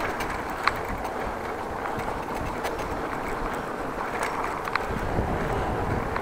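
Wind buffeting the microphone of a bike-mounted action camera during a bicycle ride, a steady rumbling hiss, with a few faint clicks.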